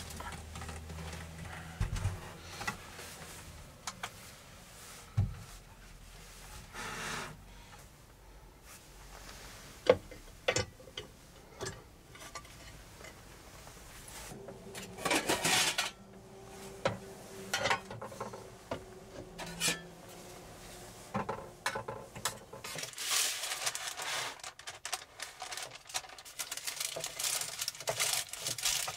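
Metal camping cookware being handled and set down on a wooden table: mess tins, lids and pans clinking and knocking, with scraping and rustling between. The sharpest knock comes about ten seconds in.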